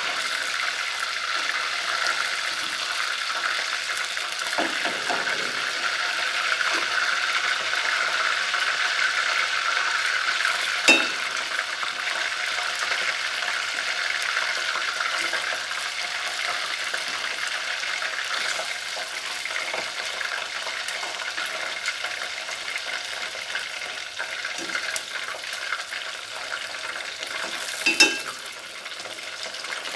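Prawns frying in hot oil in a pot, a steady sizzle as they are half-cooked, a little quieter in the last few seconds. Twice, about a third of the way in and near the end, a short ringing clink of the chopsticks against the pot.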